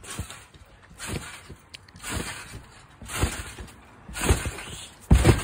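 A person bouncing on a trampoline: the mat thuds with each landing about once a second, with the heaviest landing near the end.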